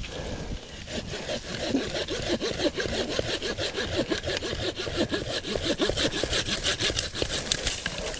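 Handsaw cutting through a woody shrub stem in quick, steady back-and-forth strokes, starting about a second in.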